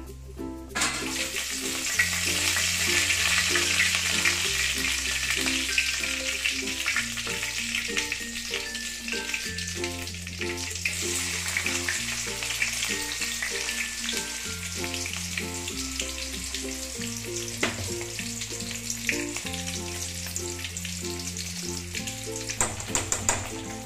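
Tempering seeds, a dried red chilli, curry leaves and chopped onions sizzling in hot oil in a stainless steel kadai. The sizzle starts suddenly about a second in, and a few sharp clinks of stirring come near the end.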